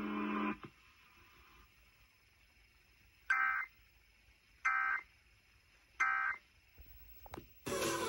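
Three short bursts of Emergency Alert System digital data screech, about 1.3 s apart, from an FM radio's speaker: the end-of-message code that closes the alert.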